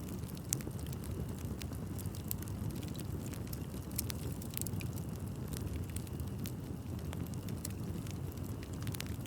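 Wood fire burning with a steady low rush and frequent sharp crackles and pops, one stronger pop about half a second in.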